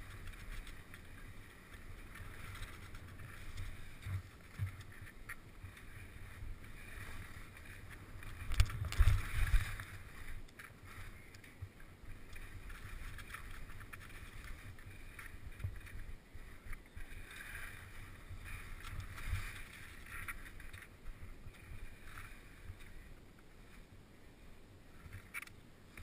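Fischer skis sliding and scraping over snow, a steady hiss broken by small knocks, heard through a helmet-mounted camera with some wind on the microphone. A cluster of loud low thumps about nine seconds in.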